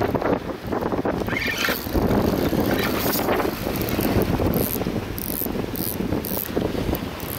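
Spinning reel being wound, its handle and gears turning, over wind buffeting the microphone and waves on the rocks.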